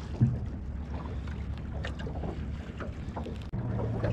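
On board a small boat: wind on the microphone with small scattered knocks and ticks, and one louder knock just after the start. After a brief dip near the end, a steady low hum sets in.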